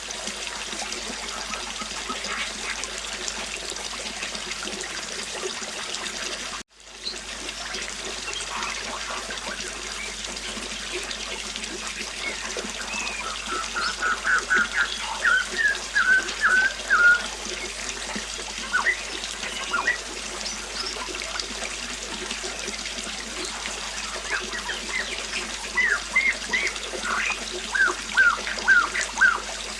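River water flowing steadily, with a songbird chirping in quick runs of short notes, once mid-way and again near the end. The sound drops out for a split second about seven seconds in.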